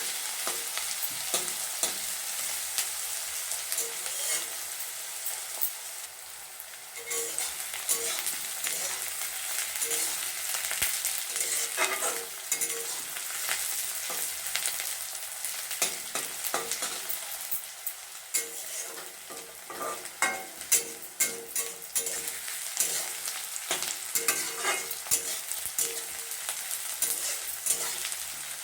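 Chopped onions sizzling in hot mustard oil in a kadhai, being fried toward golden brown. They are stirred throughout, with frequent short scrapes and taps against the pan, and the sizzle drops briefly a couple of times.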